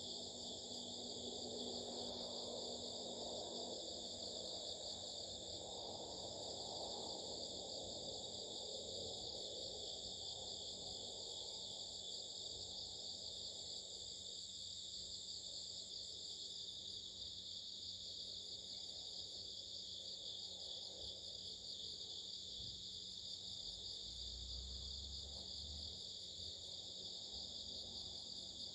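A chorus of singing insects: several overlapping steady trills at different high pitches, with a faster, fainter pulsing song above them, running on without a break.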